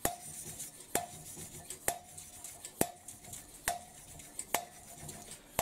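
A steel poppet valve of a Mercedes OM366 diesel cylinder head being lapped into its seat by hand with a suction-cup stick: a sharp metallic tap with a short ring about once a second as the valve is dropped onto the seat, and faint gritty rubbing between taps as it is twisted. The clear ring of the taps is the sign that the lapping paste has worn through and the seat is lapped in.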